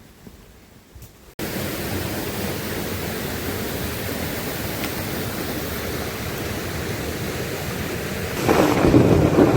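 Heavy rain falling in a steady hiss, cutting in suddenly after a quiet start and getting louder and coarser near the end.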